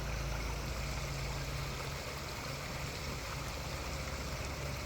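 Steady rushing of a pond waterfall splashing into the water, with a low steady hum underneath.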